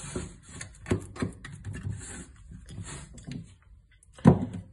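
Hands patting and pressing soft einkorn dough flat into a metal baking tin: soft, irregular pats and knocks, with one louder thump near the end.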